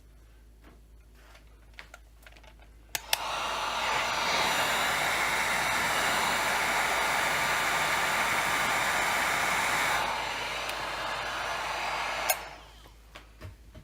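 Heat gun switched on with a click about three seconds in. It runs with a steady blowing noise, drops a little in level near ten seconds, then is switched off with a click. It is heating the chainsaw crankcase around the crank bearing seat so the bearing will drop in.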